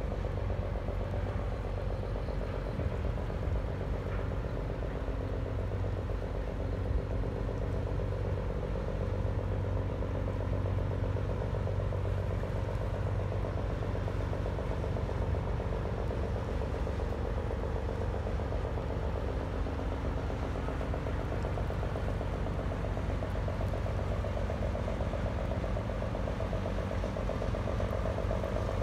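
Diesel engine of a 90 m training ship running steadily as it passes close by: a constant low drone with a higher hum that grows a little louder near the end as the ship draws level.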